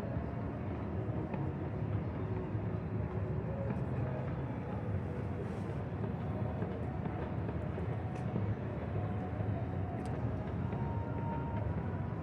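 Steady night-time city ambience: a constant low hum of distant traffic with a faint murmur of voices.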